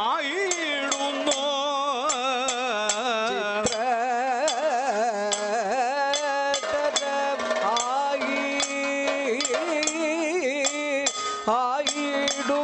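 Kathakali music: a voice singing a slow, heavily ornamented melody whose pitch wavers and slides, over a steady held note, with metal hand cymbals struck in a regular beat.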